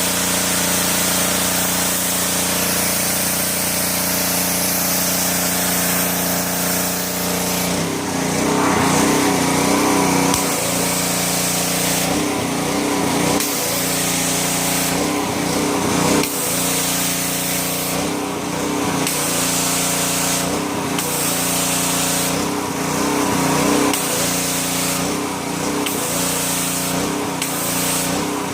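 Pressure washer running with a steady mechanical drone and the hiss of its water spray. From about a quarter of the way in, the spray hiss cuts out and comes back again and again while the motor keeps running.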